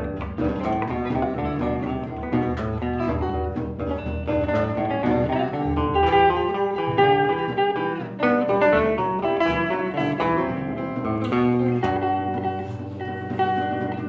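Improvised instrumental music on plucked string instruments, many quick notes over shifting chords.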